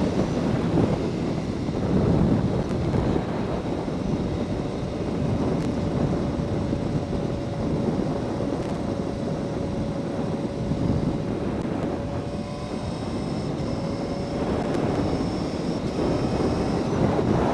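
Yamaha R1 sport bike's inline-four engine running at a steady cruising speed, under heavy wind rush on the microphone. The engine note eases down slightly and climbs again near the end.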